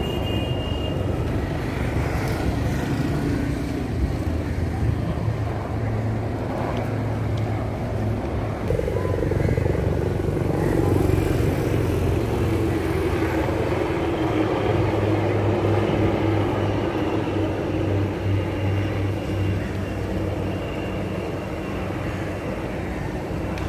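Military helicopters flying overhead in formation: a steady drone of engines and rotors that grows louder about nine seconds in.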